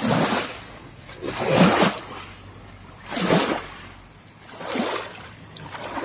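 Small waves washing onto a pebbly river shore, one wash about every second and a half.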